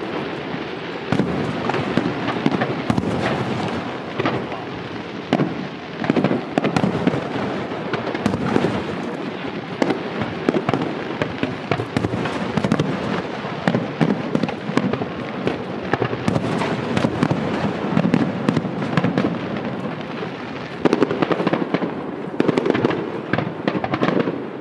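Aerial fireworks display: shells bursting in a dense, continuous stream of bangs and crackles, one after another with barely a pause.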